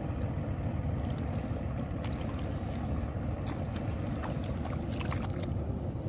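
Water sloshing and dripping as a fine-mesh fishing net is hauled through shallow water over mud, with scattered small splashes and ticks over a steady low rumble.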